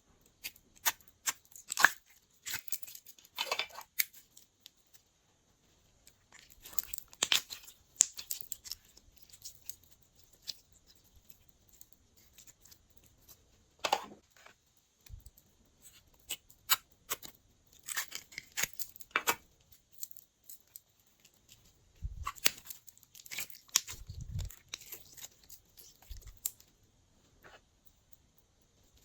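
Glossy slime being squished and stretched by hand, giving clusters of sticky clicks and crackling pops with short pauses between them, and a few soft low thumps.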